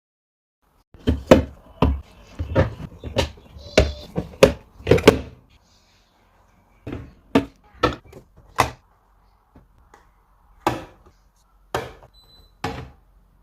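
Items being set down and moved about in a refrigerator: a quick run of about ten clunks and knocks, then a handful more spaced out after a short pause.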